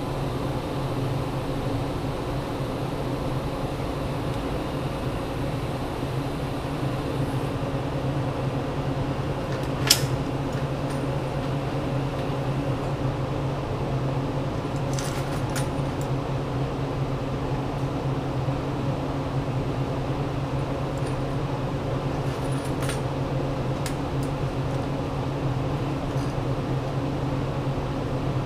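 A small electric motor humming steadily, with a few sharp clicks over it, the loudest about ten seconds in.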